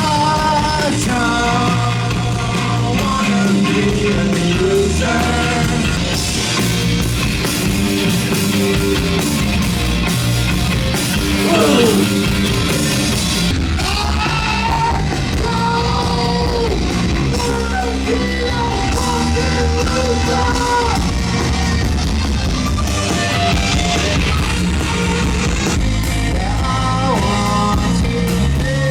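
Rock band playing live, with a singer's voice over guitars, bass and drums.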